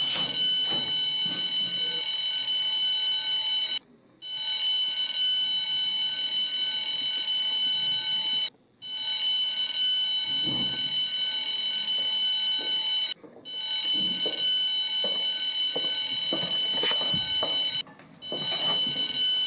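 Fire alarm sounder going off: a steady, high electronic tone with several overtones, broken by brief gaps about every four to five seconds. A few dull knocks are heard under it in the second half.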